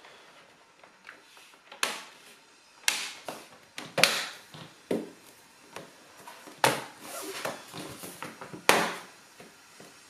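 Plastic clips of a Lenovo Legion Y530/Y540's lower case snapping into place as the cover is pressed down firmly around its edge: a series of sharp, irregularly spaced clicks, about six loud ones with softer clicks between.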